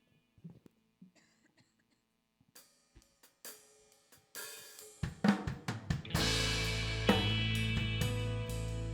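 A live worship band's drum kit coming in: faint at first, then sharp hi-hat and cymbal strikes. About five to six seconds in, the drums, bass and the rest of the band start playing loudly together.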